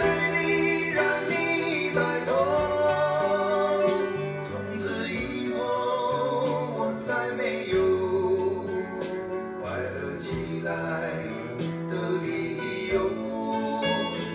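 Recorded song with a singing voice over instrumental accompaniment, played into the room through AER full-range drivers on open-baffle speakers, driven by an Elekit TU8600S amplifier running 300B valves.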